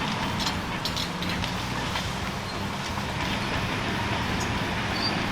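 Caterpillar crawler bulldozers' diesel engines running steadily under load while dragging a land-clearing chain, with scattered metallic clanks and brief squeaks from the tracks and chain.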